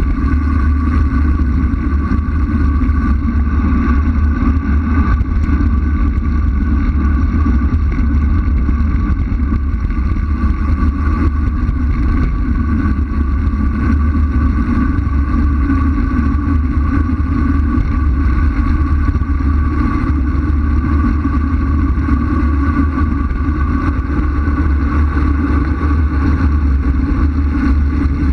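Wind rushing over a bike-mounted action camera's microphone during a fast road-bike descent: a loud, steady low rumble with no break, with a faint steady higher hum over it.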